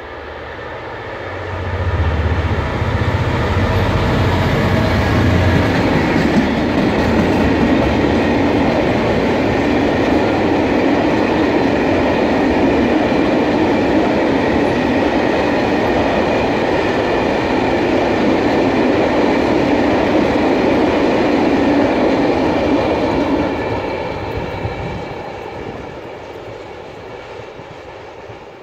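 Class 66 diesel-electric locomotive, with its two-stroke V12 engine, passing close with a loud low engine note. A long rake of empty hopper wagons follows, clattering over the rails for about twenty seconds, then fading as the train draws away near the end.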